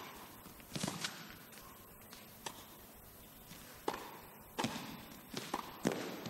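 A tennis rally: a ball struck back and forth by rackets and bouncing on the court, making short sharp pops about every second, some in quick pairs, over faint hall ambience.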